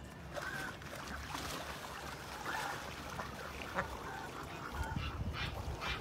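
Mallard ducks on a pond calling, a run of short repeated quacks. A low rumble joins near the end.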